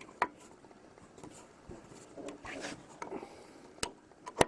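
Bench vise and metal parts being handled while a brake-cable fitting is clamped and tightened: a few sharp metallic clicks with some scraping between them, the loudest click near the end.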